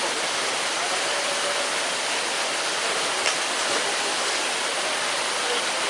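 Steady rushing of running water, an even hiss with a faint click about three seconds in.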